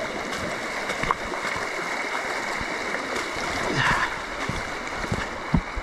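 Steady hiss of heavy rain on rain gear and the camera, with scattered low thumps of footsteps on rocky ground.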